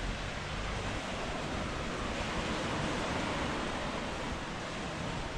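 Surf washing onto a sandy beach: a steady rushing hiss that swells a little in the middle.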